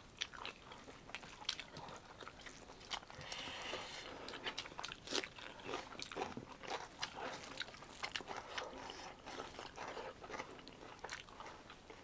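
A person chewing and biting food close to the microphone: soft crunches and wet mouth clicks come at an irregular pace.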